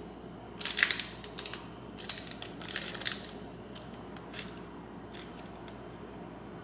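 A small clear plastic packet of screws and mounting hardware crinkling in the hands, with light clicks of the small parts inside. It comes in two short flurries in the first three seconds, then only a few faint ticks.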